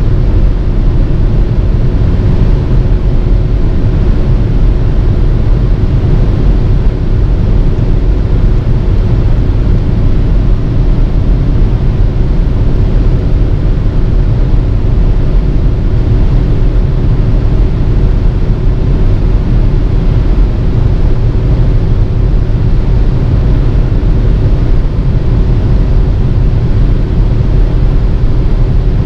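Steady cabin noise inside a 2016 VW Tiguan running at about 180 km/h, near its top speed: wind and tyre roar with a steady low hum underneath.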